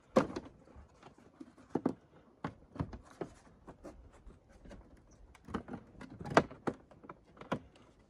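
Plastic scooter body panel being handled and pressed into place by hand: irregular clicks and knocks of plastic, the loudest just after the start and about six seconds in, with lighter taps between.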